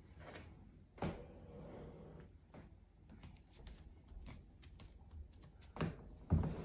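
Movement noise in a small room: scattered light clicks and rustles, with a dull thump about a second in and two louder thumps near the end as someone sits down in an upholstered armchair.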